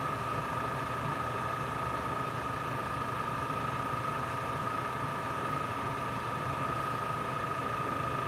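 Airbrushing equipment's motor running: a steady hum with a constant high whine, unchanging throughout.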